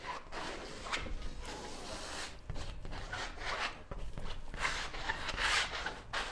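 A painting tool dragged across a stretched canvas, spreading wet paint in several scraping rubs, the longest and loudest near the end.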